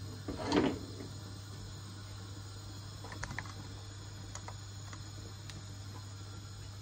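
Pan of prawns in sauce simmering softly on a gas hob, with a louder short sound just under a second in and a few light clicks and taps a few seconds later, over a steady low hum.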